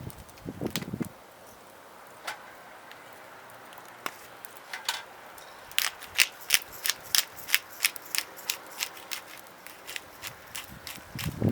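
Wood fire in a small fire stand crackling, with a run of sharp pops and snaps at about three a second in the middle, plus a brief low rustle of handling at the start.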